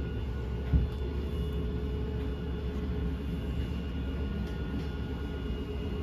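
Electric slide-out motors of a travel trailer running steadily as the dinette slide-out room extends: a low drone with a steady whine. One knock about a second in.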